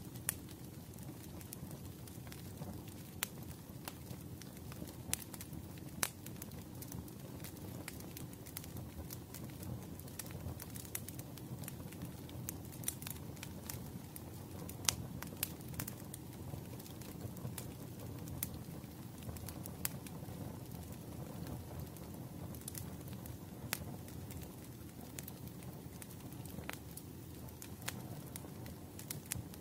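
Crackling wood fire: burning firewood gives a steady low background, with sharp pops and snaps scattered at irregular intervals.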